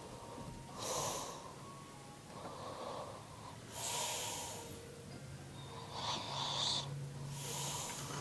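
A man snoring in his sleep: about five noisy breaths, one every one and a half to two seconds.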